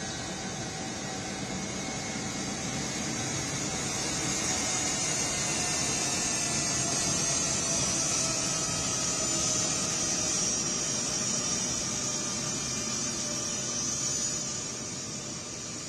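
Jet engines of an Indian Air Force C-17 Globemaster III transport running as it taxis past, a steady whine and hiss. It grows louder a few seconds in, with the whine sliding slightly lower, and falls away near the end as the aircraft moves off.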